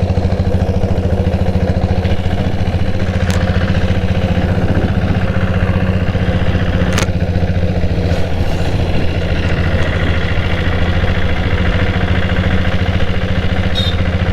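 Motorcycle engine running steadily, with a few faint clicks.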